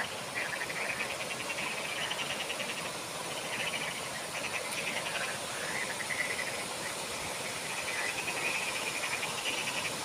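Frogs calling from the pool in a chorus of rapidly pulsed, rattling calls that repeat in trains of about a second, over the steady rush of small cascades.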